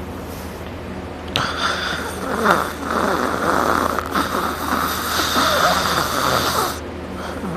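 A person sleeping on their back, snoring loudly. One long, harsh snore starts about a second and a half in and lasts about five seconds, 'like sawing down a tree', then drops back to quieter breathing. A steady low hum runs underneath.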